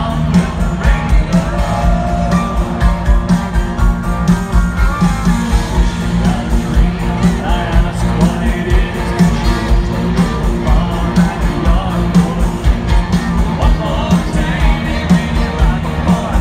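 A live country band playing a concert with singing over a steady, heavy bass beat.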